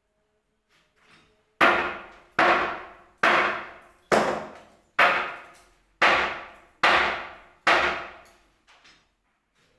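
Hammer blows: eight hard strikes in a row, a little under one a second, each with a short ringing tail.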